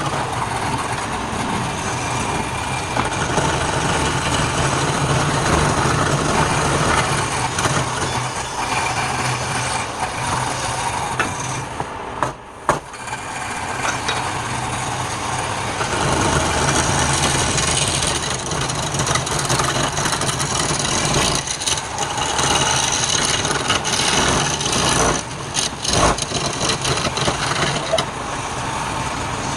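Wood lathe running with a tool cutting into the spinning wood: a steady motor hum under a continuous scraping hiss. It drops off briefly about twelve seconds in, and there are a few sharp knocks near the end.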